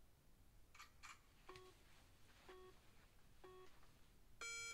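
Start countdown from a training app on a phone: three short, equal beeps about a second apart, then a louder, higher and longer beep that signals the start of a timed dry-fire drill. Two faint short clicks come just before the beeps.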